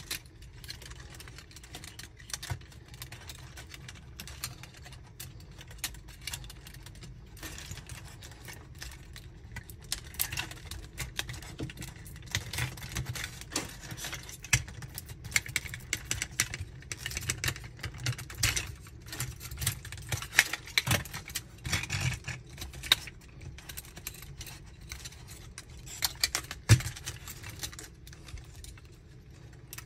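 Small plastic parts of a transforming robot toy figure clicking and clacking as they are swung, folded and snapped into place by hand: a steady scatter of light clicks that comes thicker in the middle, with one sharp, louder click near the end.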